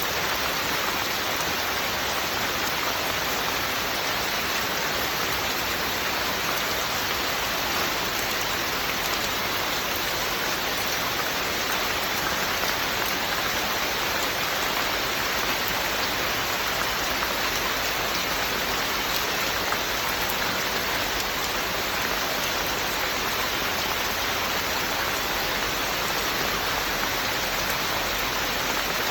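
Steady, even rain falling, with a constant hiss of drops on surfaces and no breaks or changes in strength.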